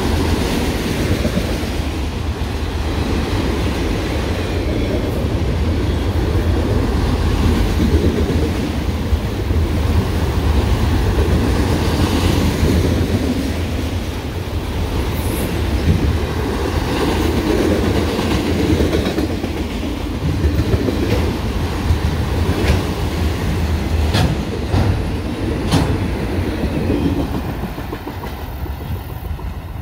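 Freight train of autorack cars rolling past: a steady rumble of steel wheels on rail with clickety-clack over the rail joints. A few sharp clicks come about three-quarters of the way in, and the sound fades near the end as the tail of the train moves away.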